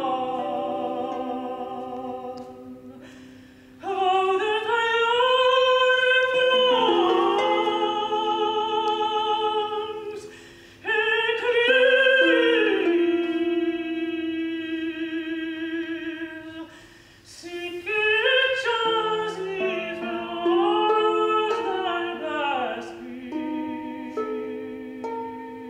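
Music: a solo voice sings long, slow phrases with wide vibrato in an operatic style over sustained accompanying notes, pausing briefly between phrases.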